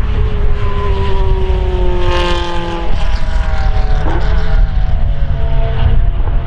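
Formula Renault 2.0 single-seater's four-cylinder engine running hard on track. The engine note slides down in pitch over the first three seconds and breaks briefly about three and four seconds in.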